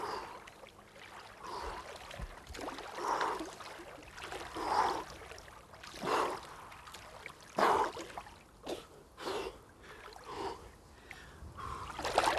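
Breaststroke swimming in cold river water: a swish and splash with each stroke, about every second and a half, then louder, continuous splashing near the end as the swimmer wades out at the bank.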